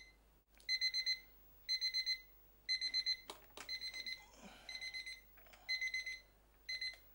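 Electronic alarm beeping: a high beep in quick clusters of several, one cluster about every second. It stops near the end, with a few sharp clicks and faint rustling in between.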